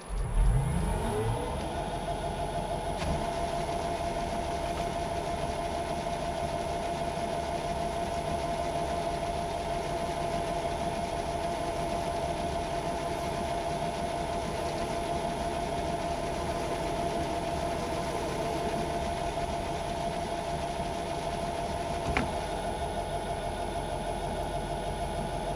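Metal lathe starting up, its motor and spindle rising in pitch over the first second or so, then running steadily with an even whine and hum while a centre drill goes into the drive-shaft workpiece. A brief tick sounds near the end.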